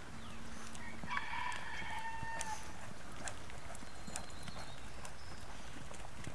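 A rooster crows once about a second in, one long call lasting about a second and a half that drops slightly at the end. Short soft clicks and thuds of a horse's hooves on the dirt of a round pen run underneath.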